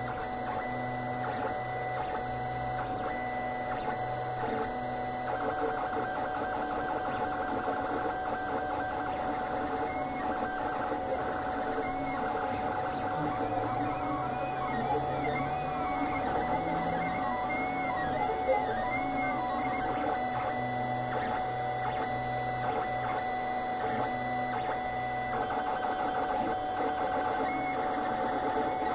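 Lulzbot TAZ 5 3D printer at work: its stepper motors whir in shifting, stepping pitches with short gliding chirps as the print head traces the layer, over a steady hum. There is one brief tick about two-thirds of the way through.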